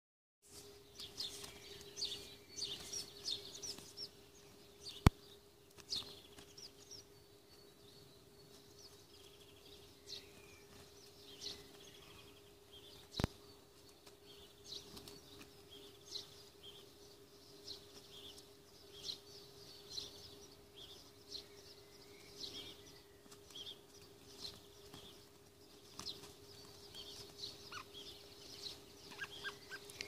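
Birds calling and chirping repeatedly in short high notes over a steady low hum. Two sharp clicks cut in, the louder about five seconds in and another about thirteen seconds in.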